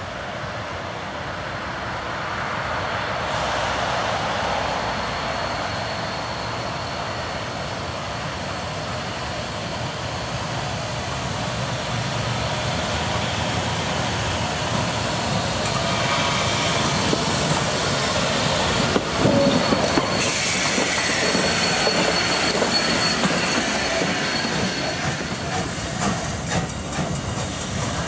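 A steam train running on the rails: a continuous rumble of wheels and rail clatter that grows slowly louder, with a thin, steady, high wheel squeal over it and a brief sharp knock about two-thirds of the way through.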